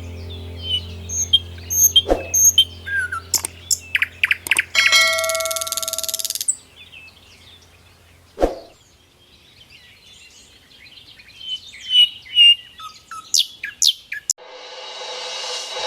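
Small birds chirping and twittering in many short calls, over a low steady hum that fades out about six seconds in. A ringing, bell-like tone with a hiss sounds around five seconds in, two sharp knocks fall at about two and eight seconds, and a rising swell begins near the end.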